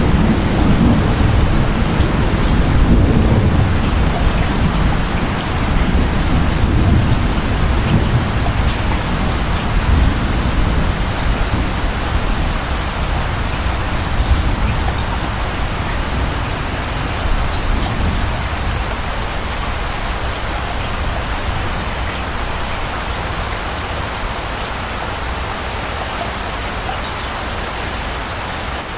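Steady rain falling, with a low rumble of distant thunder through the first several seconds that dies away, leaving the rain on its own.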